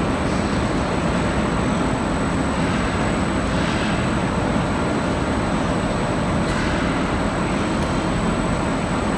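Steady rumble and hiss of factory machinery running.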